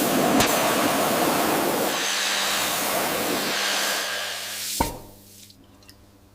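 A steady spray hissing for about four and a half seconds, then cutting off with a click, leaving a faint hum.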